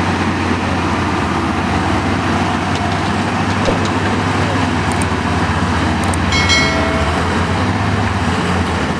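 Heavy diesel engines of a wheel loader and a tanker truck running steadily as the loader works against the truck bogged in mud. A short high tone sounds about six seconds in.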